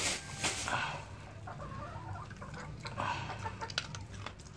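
A dog crunching dry kibble off a concrete floor, in scattered sharp clicks, with a few short calls about half a second in and again about three seconds in.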